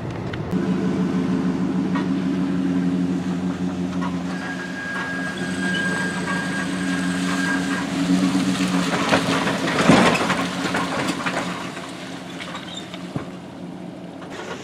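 Pickup truck engine running steadily, then a brief loud rush of noise about ten seconds in.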